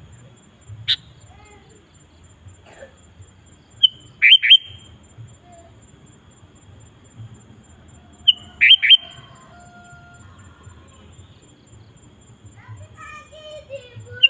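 Sooty-headed bulbul (kutilang) calling: a short phrase of a brief high note followed by two quick loud notes, repeated every four to five seconds. Softer, falling bird notes come in shortly before the end.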